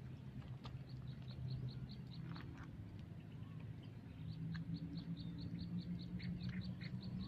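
A bird calling with a fast, even series of short high chirps, about four to five a second, in two runs, over a steady low hum.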